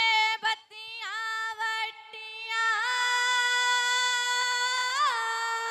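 A woman sings a Punjabi Gidda folk song solo and unaccompanied over a sound system. She sings short phrases, then holds one long note from about halfway in, with a brief upward lift near the end.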